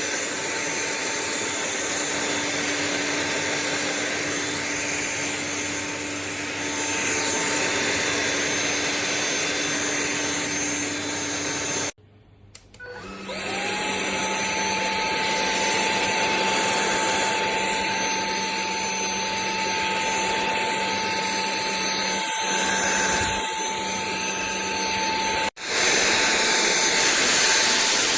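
Sulean X8 cordless stick vacuum running with a steady motor whine. About 12 s in the sound cuts off abruptly; the motor then starts again, its whine rising quickly to a steady higher pitch, and the sound changes abruptly once more near the end.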